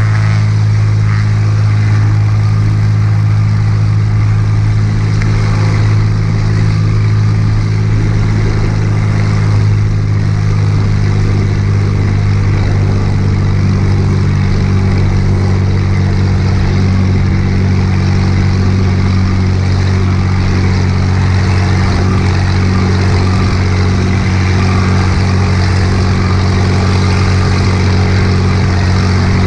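Cessna light aircraft's piston engine and propeller droning steadily at constant power.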